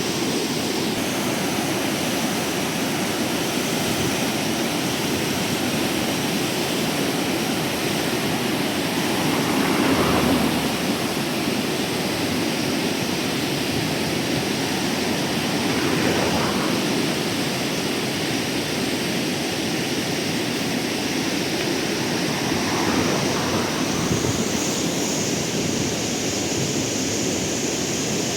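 Quijos River water rushing steadily, with a few brief surges in loudness.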